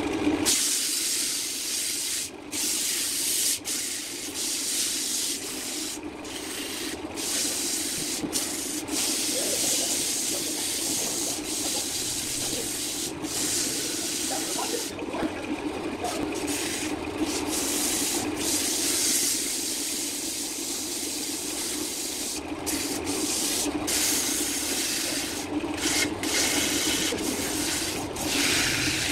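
Wood lathe running with sandpaper pressed against the spinning turned wood: a steady sanding hiss over the lathe's hum.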